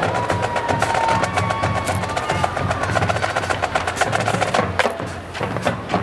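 Marching band drumline playing a fast, crisp percussion pattern of rapid, evenly spaced sharp strikes.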